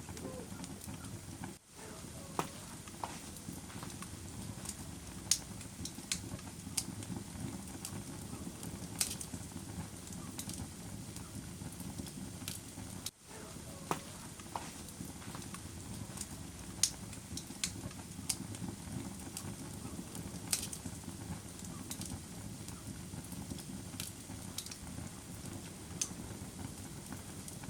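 Wood fire burning in a fireplace: a steady low rumble of flames with sharp crackles and pops at irregular intervals. The sound briefly drops out twice, about a second and a half in and again about thirteen seconds in.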